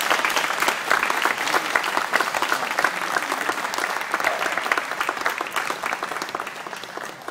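Audience applauding, many hands clapping steadily, tapering off near the end.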